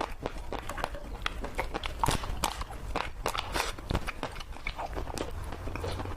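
Close-miked eating of ice cream: an irregular run of wet mouth smacks and clicks, several a second.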